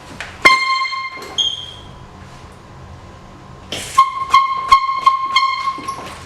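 Handheld canned air horn blasting: one blast of about a second, then a longer, stuttering blast of about two seconds near the end as it is sounded in quick jabs.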